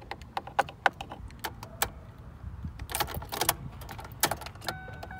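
Irregular clicks, knocks and rustles of handling inside the car's cabin. Near the end a steady electronic tone with overtones starts up.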